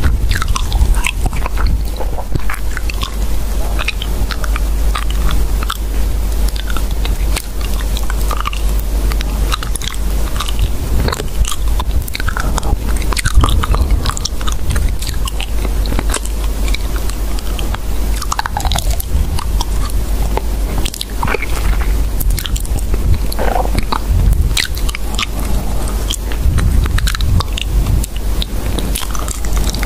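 Continuous crunching and clicking noises, dense and irregular, over a steady low rumble.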